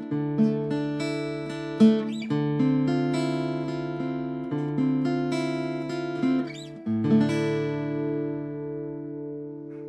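Acoustic guitar music, notes and chords plucked and left to ring, the last chord fading out near the end.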